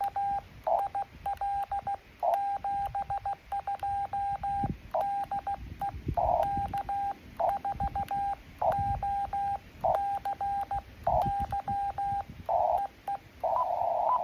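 Morse code (CW) from an amateur radio transceiver: a single mid-pitched tone keyed on and off in quick dots and dashes throughout. Near the end the tone comes through wider and hissier, and a few low thumps sit underneath.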